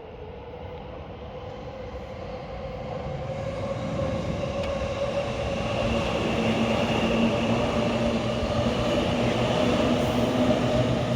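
Electric train approaching, its running noise growing steadily louder, with a steady whine that rises slightly in pitch.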